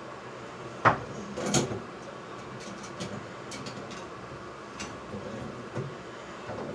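Tools and faucet parts being handled at a bathtub fixture: a sharp knock about a second in, a brief scraping rattle just after, then scattered light clicks over a steady hiss.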